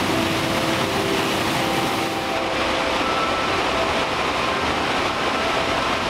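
Waterfall's steady rush of water plunging into a pool, with soft held notes of background music over it.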